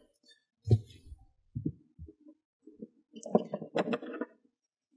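Scattered soft knocks and clicks of hand tools and parts being handled, with a busier run of clicks and rustling a little past halfway.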